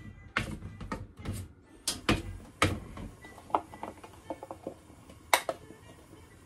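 Metal spoon clinking and scraping against a stainless steel tray while slices are tossed in flour: a string of sharp taps, several in the first three seconds and a louder one near the end.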